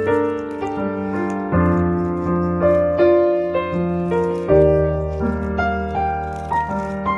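Instrumental piano music with no singing: a melody of single notes that start sharply and fade, over held low bass notes.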